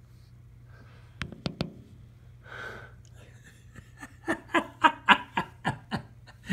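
Someone laughing in a run of short quick bursts, about four a second, after three sharp clicks about a second in and a brief hiss.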